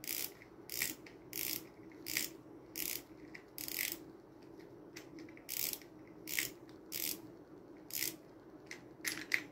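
Front drag knob of a Deukio DA2000S spinning reel being turned by hand, its clicker giving about a dozen short, sharp clicks at an uneven pace, roughly one every half second to a second.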